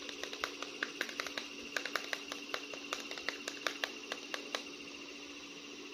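Light, irregular clicks and taps from hands handling a toy action figure, several a second, stopping about four and a half seconds in. A faint steady hum runs underneath.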